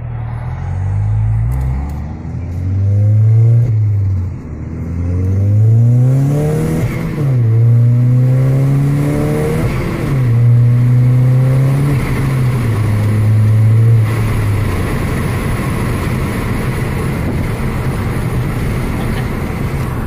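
Volkswagen MK6 GTI's 2.0-litre turbocharged four-cylinder, heard from inside the cabin, revving up and dropping back at each gear change several times as the car accelerates through the gears. The engine then fades, leaving a steady road rumble.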